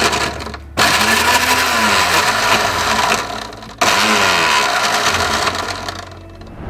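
1000 W mixer grinder chopping banana pieces, cashews and almonds in pulse mode: the motor runs in three short bursts, with brief breaks about a second in and about four seconds in, and winds down about six seconds in.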